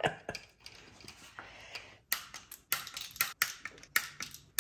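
Sharp, irregular clicks and light taps of hand tools and small parts being handled during engine assembly, about four or five a second from about two seconds in.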